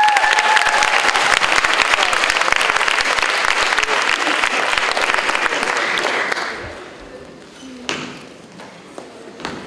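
Audience applauding, the clapping dying away about six seconds in. A couple of faint knocks follow near the end.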